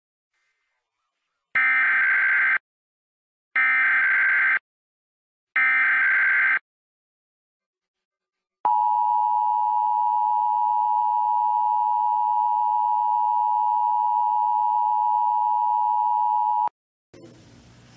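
Emergency Alert System alert opening: three one-second bursts of the SAME digital data header, then the steady two-tone EAS attention signal held for about eight seconds and cut off abruptly.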